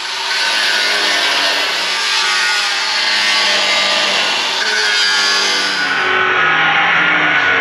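Cut-off wheel on a cordless DeWalt cut-off tool grinding through a rusted steel golf-cart frame rail, a loud, steady abrasive screech with a whine that wavers in pitch as the wheel bites.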